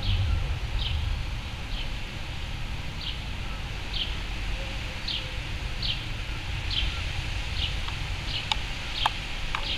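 A small bird repeating short, high, falling chirps at a steady pace of about one a second over a low background rumble, with a few sharp clicks near the end.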